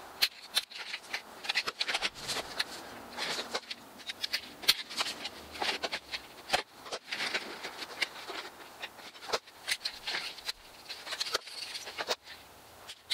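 Aviation snips cutting vinyl J-channel: a run of sharp, irregular snaps and clicks as the blades bite through the plastic, with rattling as the strip is handled.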